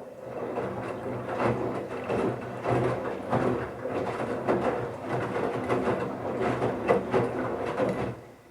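Bauknecht Super Eco 7615 washing machine turning its drum in the wash phase: a steady motor hum with wet towels tumbling in irregular knocks. It runs for about eight seconds and then stops abruptly, part of the wash cycle's on-off rhythm.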